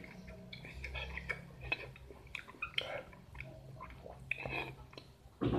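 A person chewing a mouthful of young-mango rujak close to the microphone, with a run of small wet clicks and smacks. A louder mouth or spoon sound comes near the end.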